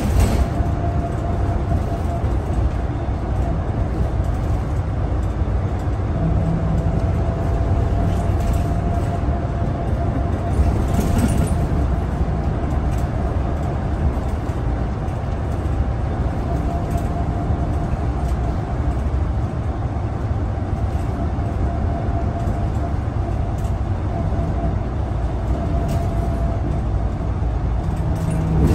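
Scania L94UB city bus heard from inside the cabin while under way: a steady low rumble of the rear engine and road noise, with a continuous whine that drifts slightly up and down in pitch. A brief rattle about eleven seconds in.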